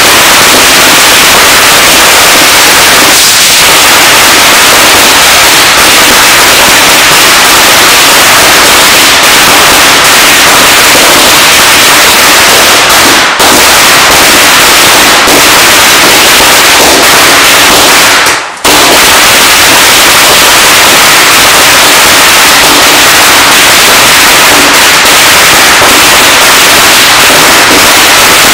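A long hanging string of firecrackers bursting in an unbroken, rapid crackle of bangs, loud enough to run the recording near full scale. The bursting dips for a moment about eighteen seconds in, then carries on.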